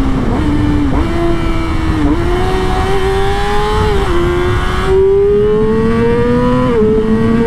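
Yamaha R6 RJ15's 600 cc inline-four accelerating under load: its pitch climbs through each gear and drops briefly at three quick upshifts, about two, four and seven seconds in. Heavy wind noise rumbles on the helmet microphone throughout.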